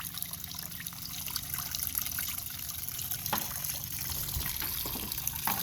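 Gasoline trickling steadily out of a lawn mower's carburetor into a container: fuel is leaking through because ethanol has damaged the carburetor.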